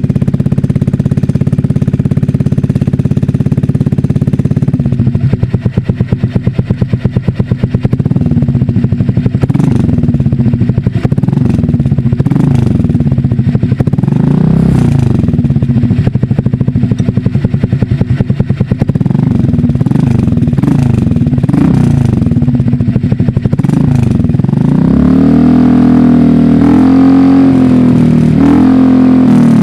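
Honda Click scooter's single-cylinder engine through an SC Project exhaust fitted with a single silencer baffle, idling and then revved up and down repeatedly, held at higher revs near the end. There is a slight metallic rattle from the baffle inside the pipe, which is not yet fastened.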